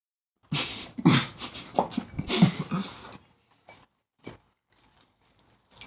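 Breathy, wordless mouth-full vocal sounds and heavy breathing from a person biting into a shumai dumpling, lasting about three seconds, followed by a couple of light clicks.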